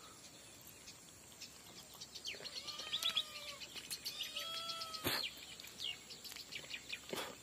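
Faint birds calling in the background: a few drawn-out arching calls and quick runs of high chirps from about two to five seconds in. Two sharp clicks come about five seconds in and near the end.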